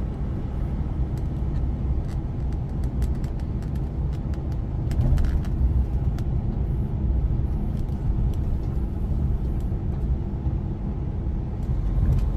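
Cab interior of a semi-truck on the move: the diesel engine and road noise make a steady low rumble, with scattered faint clicks on top.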